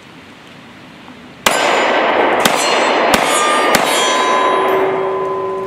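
Glock 43 9mm pistol fired four times at a steady pace, starting about a second and a half in. Struck steel targets answer with a metallic clang, and their ringing tones hang on after the last shot.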